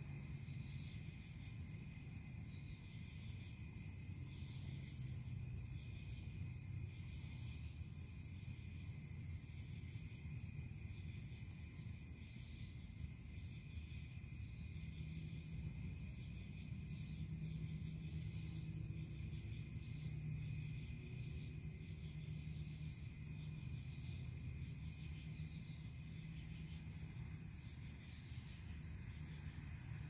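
Night insect chorus: steady high-pitched trilling that pulses about once a second, over a faint low hum.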